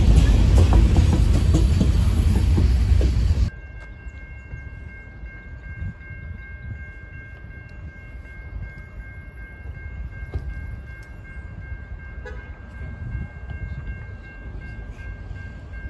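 Freight train cars rolling past close by, rumbling and clattering on the rails, cut off abruptly a few seconds in. After that there is a much quieter low rumble with a faint steady high tone.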